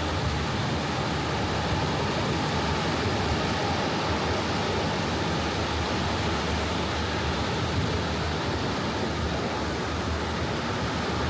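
Soft ocean waves washing onto a beach, heard as a steady, even hiss of surf with no single breaker standing out.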